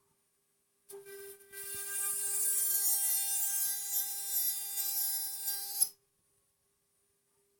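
CNC 6040 router's spindle running with a steady high whine while milling aluminium, with a hiss from the cut. It starts about a second in, grows louder shortly after, and cuts off abruptly near six seconds.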